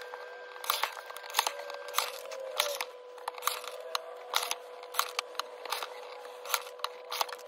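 Paper price labels being handled and cut: a string of short, sharp clicks and rustles, irregular and about one or two a second, over a faint steady hum.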